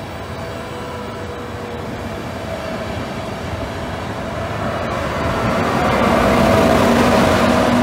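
Intercity passenger train rolling past on the rails, the wheel noise growing steadily louder as its electric locomotive at the rear comes alongside, loudest near the end, with a steady humming tone from the locomotive.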